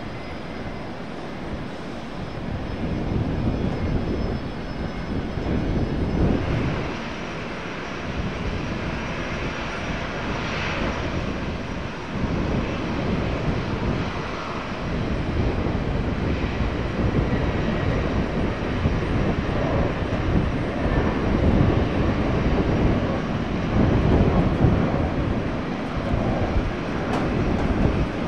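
Airliner engine noise: a low rumble that builds about two seconds in and stays loud, swelling and easing in waves.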